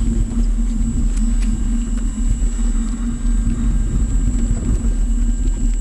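Wind rumbling on the microphone over a steady low hum from the electric motor spinning the rotor sail's cylinder.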